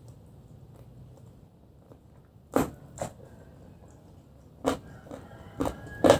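A person eating on camera: chewing with a few short, sharp mouth clicks and smacks, two about two seconds in, then three more closer together in the second half.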